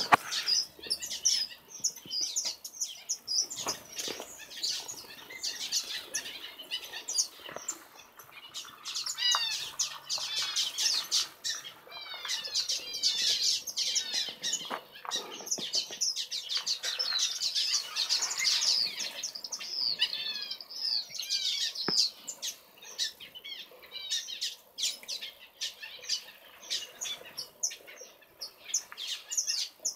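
A mixed flock of small aviary finches and waxbills chirping and calling, many short high notes overlapping, busiest through the middle of the stretch.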